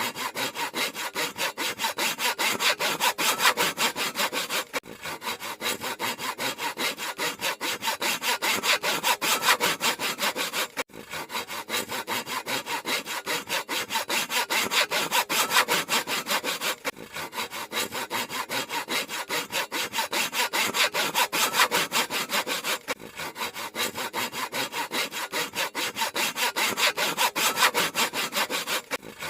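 Handsaw cutting through wood in quick, even back-and-forth strokes, with a brief pause about every six seconds.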